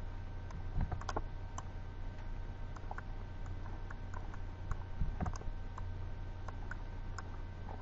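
Scattered clicks of a computer mouse and keyboard, a few louder than the rest, over a steady low hum.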